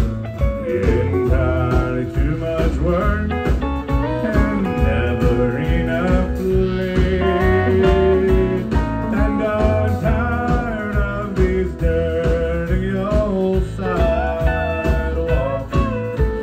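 Country band playing live: fiddle, acoustic and electric guitar over a steady beat.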